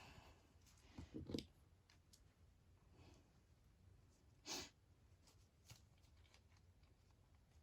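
Near silence: room tone, with a few faint soft clicks about a second in and one short breathy rush about halfway through.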